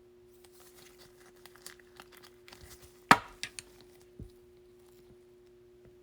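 Trading cards being handled: soft rustling and crinkling of card stock and plastic sleeves, then a sharp tap about three seconds in, a couple of lighter clicks, and a dull knock a second later.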